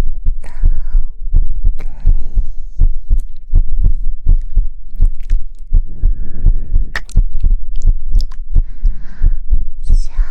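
Soft, rhythmic low thumps, several a second, close on an ASMR microphone, like a heartbeat. Breathy hissing comes now and then, near the start and again near the end.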